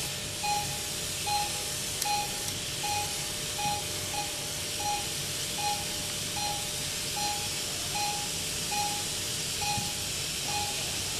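Operating-theatre patient monitor beeping with the pulse: a short, high beep about every 0.8 seconds, roughly 75 a minute, over a steady hiss.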